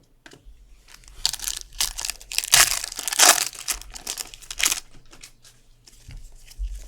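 A football card pack's wrapper being torn open and crinkled: a run of loud crackling and ripping, busiest between about one and five seconds in, then lighter rustling.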